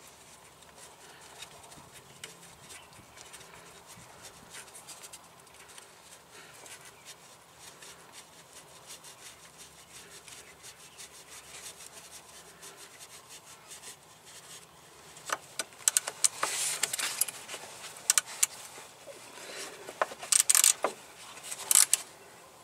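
Gloved hands rubbing and scraping against hoses and metal parts while fitting a coolant elbow onto an EGR valve, then, from about fifteen seconds in, clusters of sharp metallic clicks and rattles as parts and tools knock together, loudest near the end.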